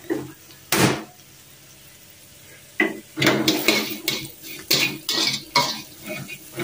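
Slotted metal spatula scraping and clattering against a wok while stir-frying: a single knock about a second in, then rapid repeated scrapes and clatters from about three seconds in.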